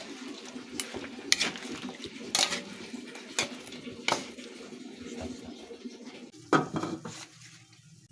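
Metal kitchen utensils clinking against pots and dishes: a handful of sharp, irregular clinks about a second apart over a steady low background that fades out near the end, with the loudest knock just before it does.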